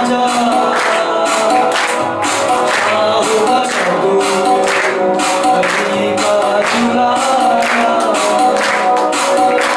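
Qawwali: male voices singing together to a steady rhythm of hand claps from the seated chorus.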